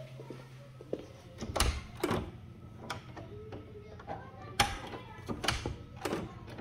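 Irregular knocks and clicks, about six spread over five seconds.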